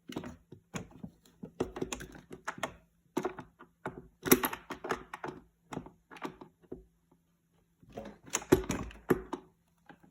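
Quick plastic clicks and knocks in three clusters, with a pause of about two seconds after the middle: a flathead screwdriver pressing and prying at the wiring connector of an LG refrigerator's ice maker to unplug it.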